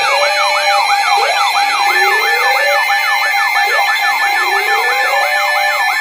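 Several weather alert radios sounding their alarms at once for a tornado warning: overlapping quick warbling siren sweeps, about four a second, a slower rising wail that repeats about every two seconds, and steady alarm tones underneath.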